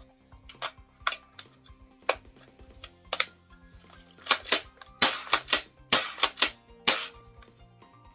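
Sharp clacks and snaps from an AGM M180C2 spring air-cocking airsoft shotgun being worked and fired, single clicks at first, then a quick run of loud snaps from about four to seven seconds in. Background music plays underneath.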